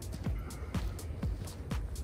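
Background electronic music with a steady beat: a deep kick drum about twice a second, with sharp hi-hat-like ticks between the kicks.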